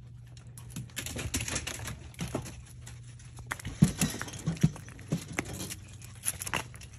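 Foxes chewing raw chicken feet: irregular crunching and clicking with a few sharper knocks, over a low steady hum.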